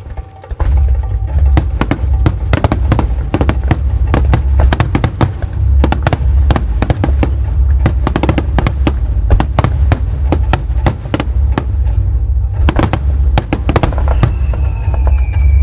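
Large starmine fireworks barrage: rapid volleys of shells bursting with deep booms and sharp cracks. A falling whistle comes in near the end.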